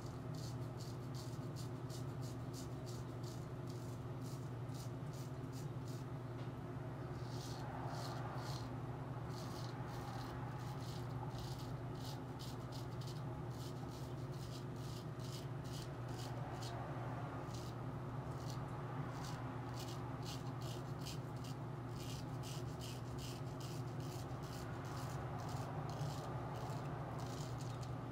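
Straight razor scraping through lather and stubble in runs of short, quick strokes with brief pauses between them, over a steady low hum.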